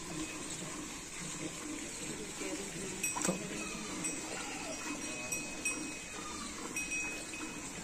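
Cow being milked by hand: milk streams squirting into a steel bucket, with a sharp click about three seconds in.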